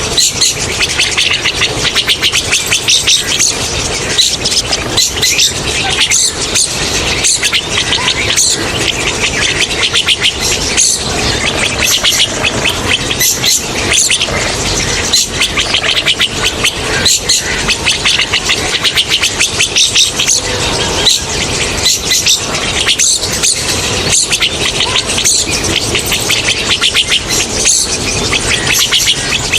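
A flock of rosy starlings chattering in a loud, dense, unbroken chorus of rapid high notes.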